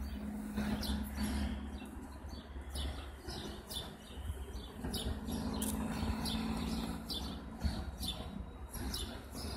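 Small birds chirping, short sharp calls several times a second, over a low hum that fades and returns partway through.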